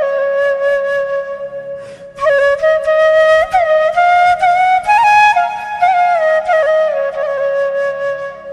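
Background music: a flute-like wind melody with ornamented slides between notes over a soft low drone.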